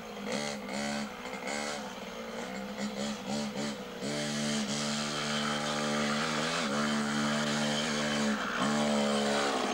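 Small 50cc two-stroke minitrial motorcycle engine, blipped in short throttle bursts for the first few seconds, then running steadily with a few brief dips in pitch.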